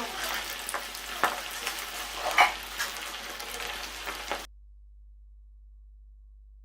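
Chicken pakora pieces sizzling and crackling as they deep-fry in hot oil, with a few sharp clicks of a utensil against the pan. The sound cuts off suddenly about four and a half seconds in.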